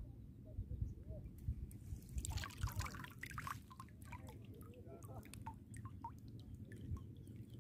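Small water splashes and drips at the reservoir's edge, a close flurry of them about two seconds in that thins to scattered drips, over a steady low rumble of wind on the microphone.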